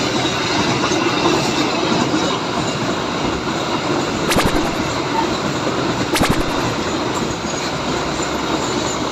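Train running on the rails, a steady loud rumble of wheels and carriages, with two sharp clicks about two seconds apart near the middle.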